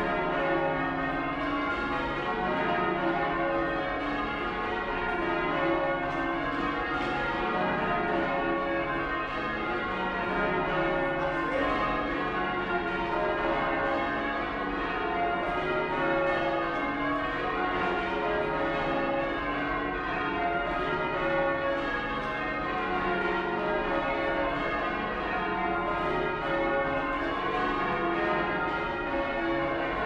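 Ring of ten church bells in D flat, cast in 1892 by John Taylor & Co (tenor 38 cwt), rung full-circle by a band of ringers pulling ropes, the bells striking one after another in a steady, unbroken sequence.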